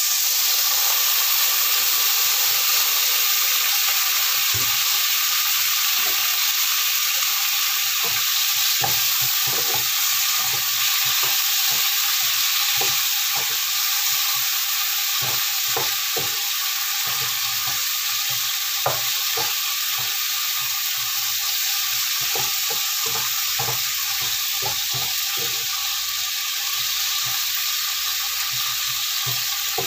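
Cucumber and baby corn sizzling steadily in a hot nonstick frying pan with a splash of water and sauce just added. From about eight seconds in, a wooden spatula stirring them gives many short taps and scrapes against the pan.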